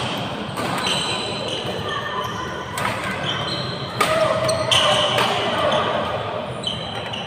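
Repeated sharp knocks and hits echoing in a large indoor hall, mixed with short high squeaks and background voices.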